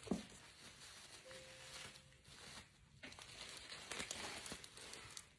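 Packaging crinkling and rustling as it is handled and unwrapped, in irregular small crackles that get busier in the second half.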